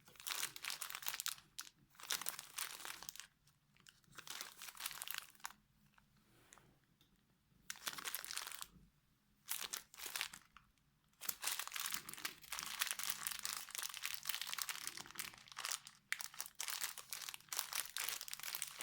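Crinkly packaging of craft supplies being handled and rustled, in bursts of one to several seconds with short pauses between them.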